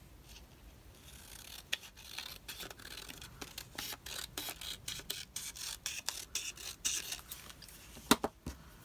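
Scissors snipping through paper, a quick run of short cuts trimming the border off a printed collage sheet, with a couple of louder clicks near the end.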